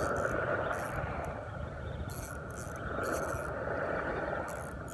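Ultralight spinning reel being cranked close to the microphone while reeling in a hooked fish: a steady whirring of the reel's gears with short, irregular scratchy rasps over it.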